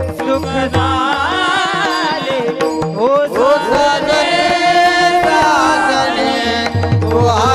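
Devotional bhajan singing: a voice holds long, wavering, ornamented notes without clear words, over steady accompanying tones and low hand-drum strokes.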